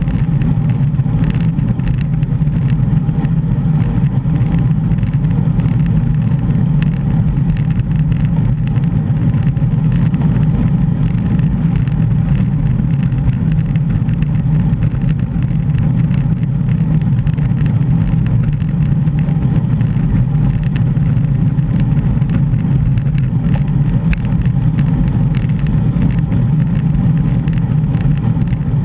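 Steady low wind rumble buffeting a GoPro microphone on a moving bicycle.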